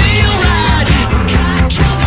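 Loud rock music with a steady drum beat and a low bass line.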